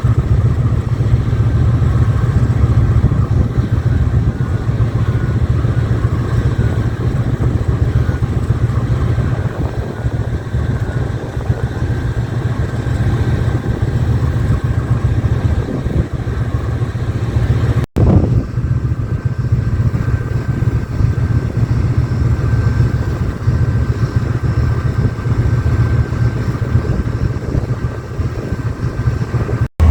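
Diesel-electric locomotive engine running steadily, its sound heaviest at the low end, with a faint steady whine above. The sound drops out for an instant about eighteen seconds in.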